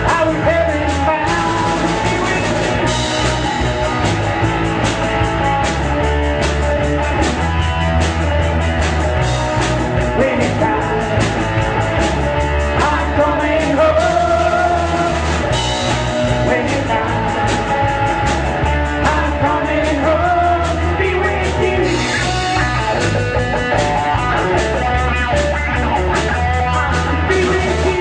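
Rock band playing a song, with electric guitar, bass and a steady drum beat, and singing.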